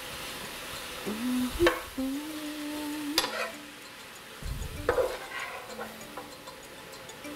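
Sliced onions, peppers and scallions sizzling in a frying pan while being stirred, the utensil knocking and scraping against the pan a few times.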